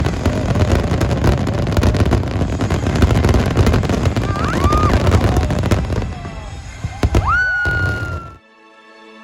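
Large fireworks display: a dense barrage of booms and crackling bursts with a heavy low rumble, easing a little after about six seconds. The fireworks cut off abruptly just past eight seconds and give way to music.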